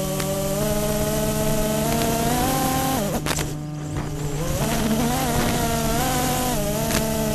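FPV quadcopter's brushless motors and propellers whining, the pitch climbing with throttle, then dropping sharply about three seconds in as the throttle is briefly cut, before climbing again and settling near the end.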